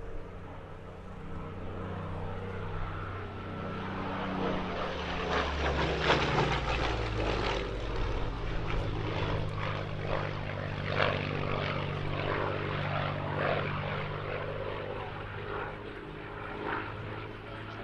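Merlin V12 engine of a propeller-driven warbird flying past. Its steady drone grows louder and drops in pitch about six seconds in, then carries on.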